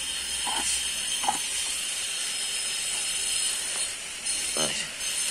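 Steady background hiss with a faint high whine running through it, and a few faint brief noises.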